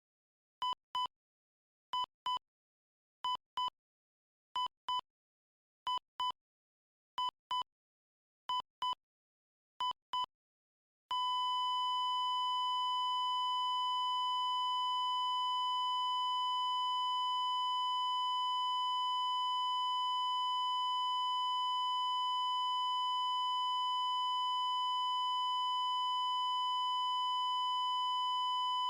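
Heart-monitor flatline sound effect: a beep sounding in quick pairs about every 1.3 seconds, like a heartbeat, then about eleven seconds in one continuous flatline tone on the same pitch.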